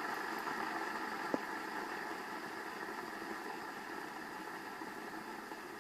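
Fidget spinner whirring on its bearings as it winds down, the steady hum slowly fading, with one light click about a second and a half in.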